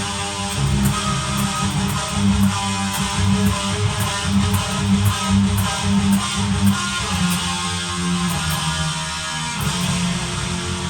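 1990s Jackson Kelly KE3 electric guitar fitted with cheap Invader-clone humbucker pickups, played through heavy distortion as a tone test. It is playing a driving, rhythmic riff with strong low notes.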